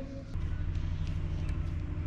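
A steady low machine hum, starting about a third of a second in and holding even.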